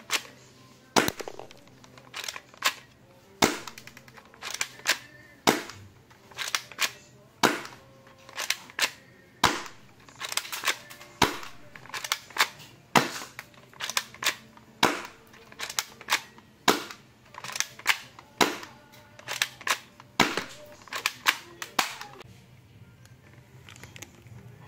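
A spring-powered airsoft pistol firing shot after shot, with the BBs striking a cardboard box: sharp snaps about one or two a second, stopping a couple of seconds before the end.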